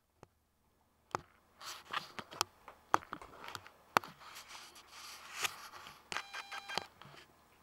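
A large dog chewing and worrying a toy on the carpet: scratchy rustling and sharp clicks. About six seconds in comes a short run of rapid pitched beeps.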